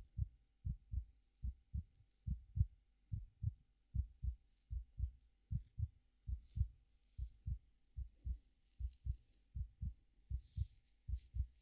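Steady heartbeat, paired lub-dub thumps at roughly eighty beats a minute, with soft, high rustling of hair being played with fading in and out every second or two over it.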